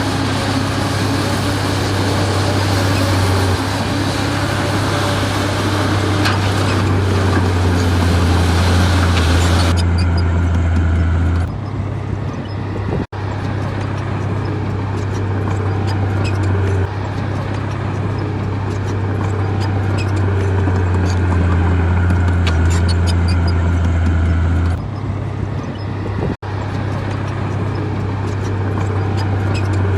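Heavy diesel engine of earthmoving machinery running with a steady low drone, its level rising and easing several times as it works.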